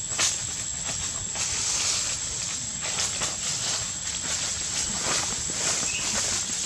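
Outdoor ambience over dry leaf litter: scattered crackles and rustles of leaves as the long-tailed macaques shift about, over a steady high-pitched whine, with a short chirp near the end.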